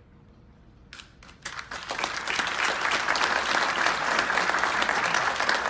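Audience applauding: a few scattered claps about a second in, then it swells into full, steady applause.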